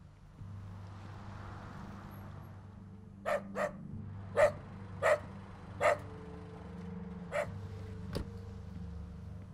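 A dog barking six times in short, spaced barks, over a low steady hum, with a single sharp click near the end.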